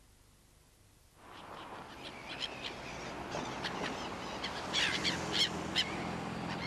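Gulls calling in many short, sharp cries over a steady outdoor background that fades in about a second in. The calls grow busier toward the end.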